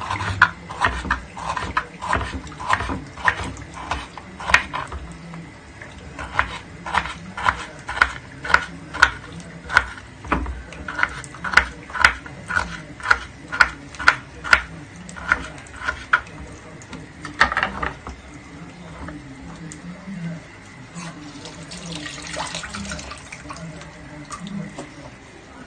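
A utensil stirring seafood in a tagine, scraping and knocking against the pot about twice a second, then a few scattered sounds after the stirring stops.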